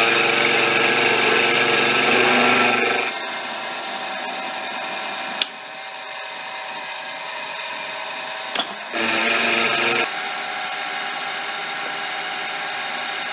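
Benchtop mini mill with an end mill cutting an aluminium block in half-millimetre passes. It cuts loudly with a steady pitched whine for about the first three seconds and again for about a second around nine seconds in. In between, the spindle runs more quietly, with a couple of sharp clicks.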